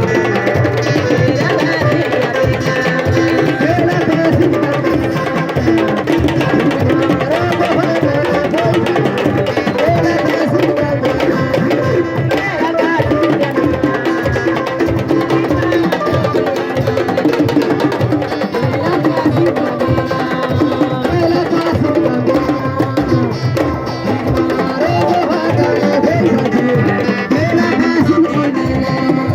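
Music with hand drums playing a steady, busy rhythm under a melody.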